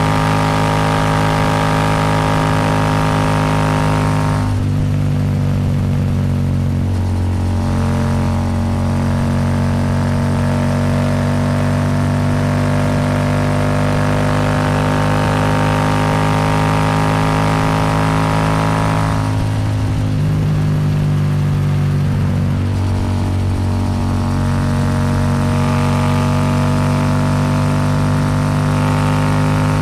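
Royal Enfield Super Meteor 650's 648 cc parallel-twin engine running steadily through a Rhino Racing slip-on exhaust at highway speed. Twice, about four seconds in and again about nineteen seconds in, the sound turns duller for a few seconds before it picks up again.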